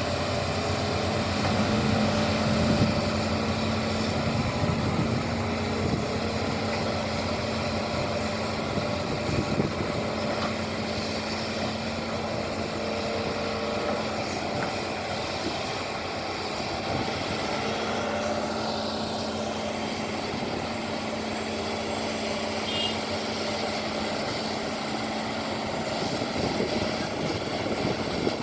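Excavator's diesel engine running steadily with a constant drone while the machine works.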